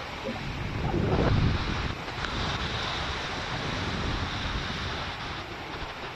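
Storm wind gusting against a phone's microphone at the leading edge of an approaching thunderstorm, a steady rushing that swells into a louder gust about a second in and then eases slightly.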